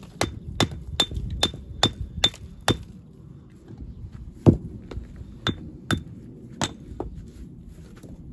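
Stonemason's hammer blows with a sharp metallic ring: a quick, even run of about seven strikes, roughly two to three a second. After a short pause comes one heavy, loudest blow, then four more spaced strikes.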